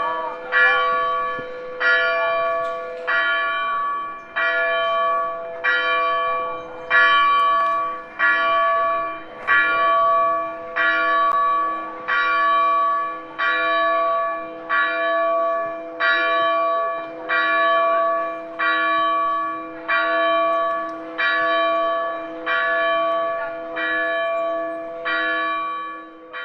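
A single church bell tolling steadily, struck roughly once a second, each stroke ringing on into the next over a lingering low hum.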